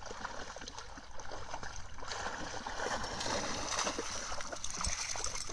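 Water splashing and sloshing as two dogs swim and then wade through shallow water, a steady busy splashing that gets louder from about a second in.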